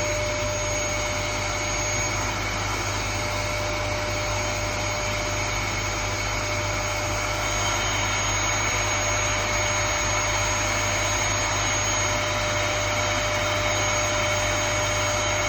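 Vacuum cleaner running steadily, its motor giving a constant whine over a rushing blower noise.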